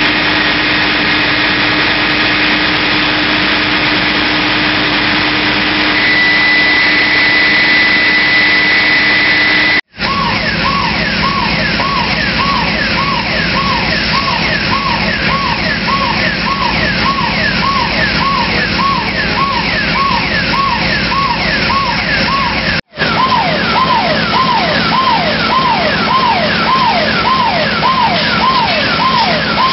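Emergency vehicle sirens sweeping rapidly up and down in a yelp, about two cycles a second, with two or more sirens overlapping out of step. Before that there is a steady mechanical noise with a constant hum, and a high steady whistle comes in about six seconds in. The sound cuts abruptly twice where the footage is edited.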